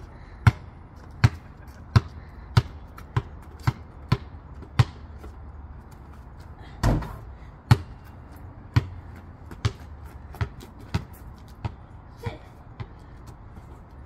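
Basketball dribbled on a concrete driveway, about one and a half bounces a second. About seven seconds in, a louder hit with a short ringing tail as the shot strikes the hoop, then the loose ball bounces on the concrete, the bounces coming quicker and fainter as it dies away.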